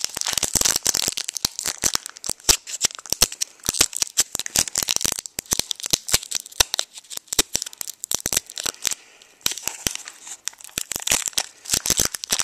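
Foil wrapper of a Pokémon Platinum booster pack being slowly and carefully peeled open by hand, so that it is saved rather than ripped apart. It crinkles and crackles in a dense run of small tearing sounds, quieter for a moment about nine seconds in.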